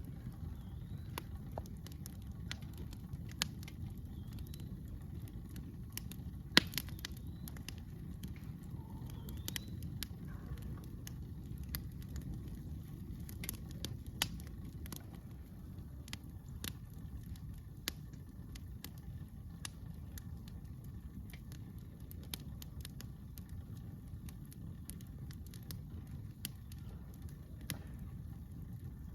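Wood campfire crackling, with scattered sharp pops, the loudest about six and a half seconds in, over a steady low rumble.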